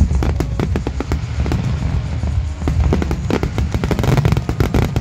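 Fireworks display: many aerial shells bursting in a dense barrage, a rapid run of sharp bangs and crackles over a continuous low booming.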